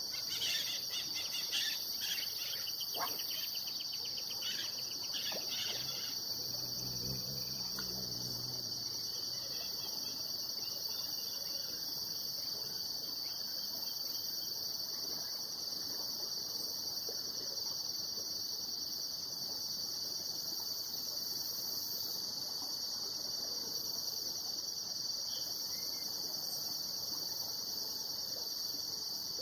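Insects chirring steadily in a high, unbroken drone, with a few short bird chirps in the first several seconds.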